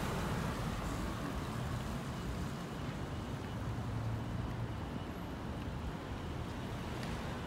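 Street traffic noise as a car drives past close by and away, its low engine and tyre noise swelling briefly about halfway through over a steady outdoor hum.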